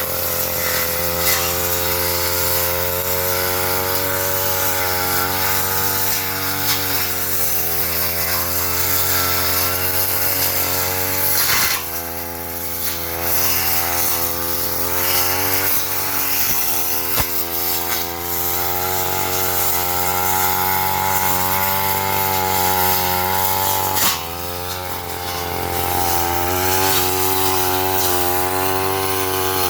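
Petrol brush cutter running at high revs as it cuts undergrowth, its engine pitch wavering and sagging under load. It eases off briefly twice, with a few sharp ticks as the blade strikes something.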